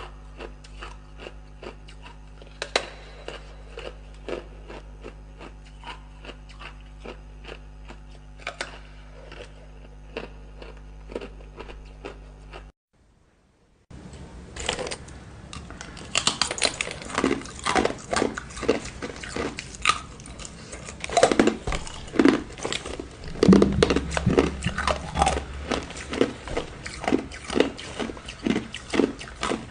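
Ice being bitten and chewed close to the microphone: quick, crisp crunches over a steady low hum, then after a brief break a second, louder run of crunching.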